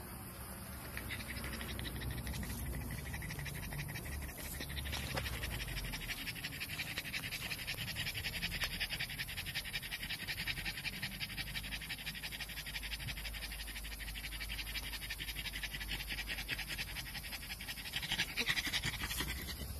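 Pug panting fast and steadily, short quick breaths one after another.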